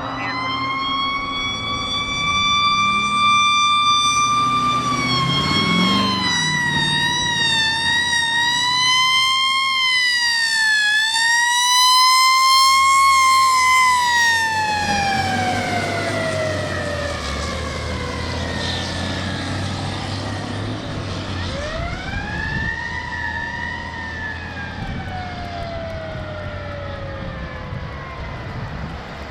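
Fire engine siren wailing as the engines respond. The pitch wavers up and down quickly in the middle, then slowly falls away, winds up again, and falls off once more, over the low rumble of the truck engines.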